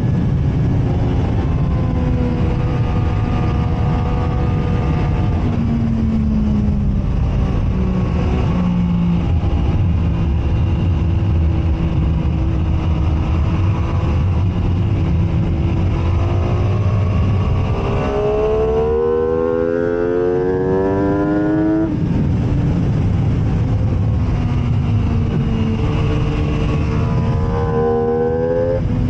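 MV Agusta F3 675 inline-three sport bike engine at racing speed on a track, its note climbing steeply through the gears about two-thirds of the way in and again near the end, with a lower, slowly falling stretch through the first half.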